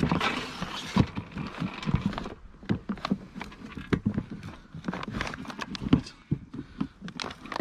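Irregular clicks and knocks of a tackle box being handled and opened.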